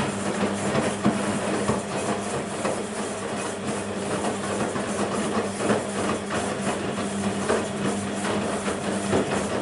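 BEKO WMB 51441 front-loading washing machine running a wash cycle: a steady motor hum with irregular knocking and swishing as the drum turns the laundry and water.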